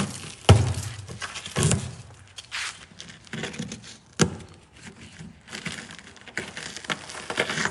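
A series of irregular knocks and thuds with softer scraping and rustling between them. The loudest knocks come about half a second in and again near the middle.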